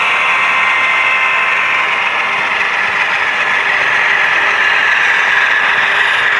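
HO scale model diesel locomotives running past close by: a steady mechanical whir of motors, gearing and metal wheels on the rails.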